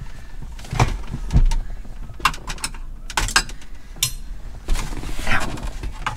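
Scattered sharp clicks and knocks of plastic interior trim and a wiring connector being handled as a C5 Corvette's cigarette-lighter plug is unhooked and the center-console bezel worked loose, with one brief metallic ring about four seconds in.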